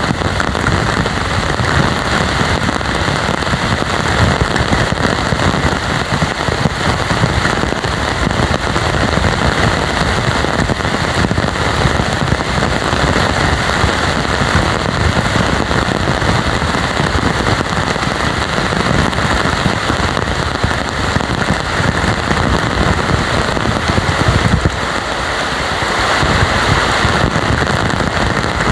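Heavy tropical rain pouring down steadily, a dense patter of drops hitting the ground and foliage, easing slightly for a moment near the end.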